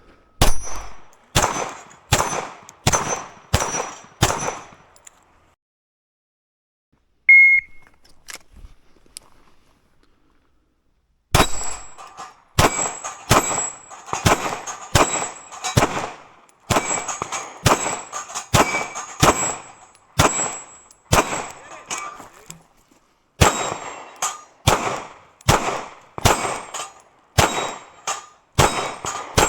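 Pistol-caliber gunfire at steel targets, about two shots a second, each shot followed by the high ring of struck steel. A string of about seven shots is followed by a pause broken by one short high beep, then a long string of shots at the same pace.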